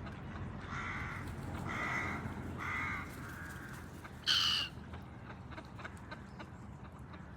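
A bird calling with harsh, cawing calls: three about a second apart, then a louder one about four seconds in. A steady low background rumble runs underneath.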